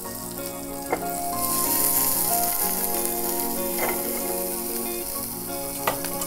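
Chopped green chillies and cumin sizzling in hot oil in a frying pan, the sizzle growing brighter about a second and a half in, while a spatula stirs them and knocks against the pan a few times.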